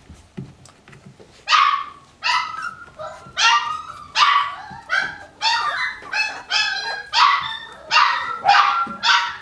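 Australian Shepherd puppies yipping in play: a steady run of over a dozen high-pitched yips, starting about a second and a half in.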